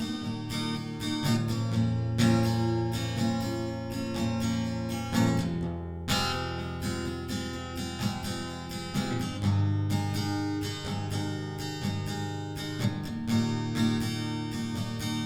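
Acoustic guitar strummed, chords ringing with no voice.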